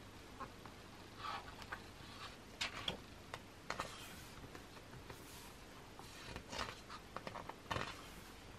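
Thick glossy pages of a photobook being turned by hand: faint paper rustles and swishes with a few light ticks as the pages lift and fall over.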